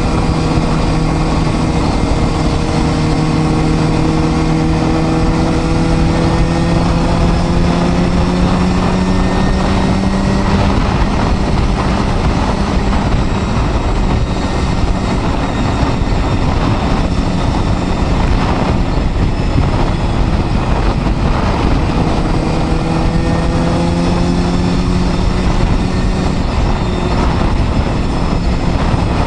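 Honda Hornet 250's inline-four engine running under way, its note rising slowly as it pulls through a gear. For a stretch in the middle the engine note gives way to a steady rushing noise, then it comes back and drops away near the end.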